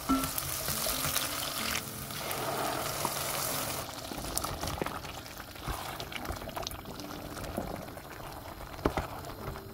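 Onions sizzling in hot oil in a pot, followed after a few seconds by a quieter tomato sauce bubbling as it simmers, with a few small clicks.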